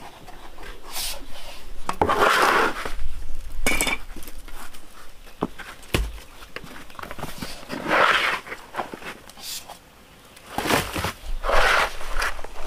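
A plastic dustpan scraping over concrete and dry cassava peelings rustling as they are scooped up and tipped into a woven bamboo basket, in three or four bursts of about a second each with a few light knocks between.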